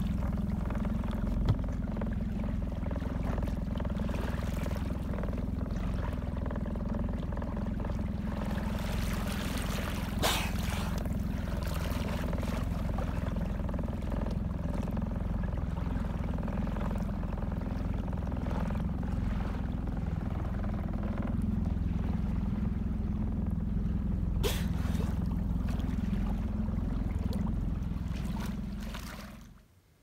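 A small boat's motor running steadily, with water washing along the hull. Two brief sharp knocks or splashes, about ten seconds in and again near the end.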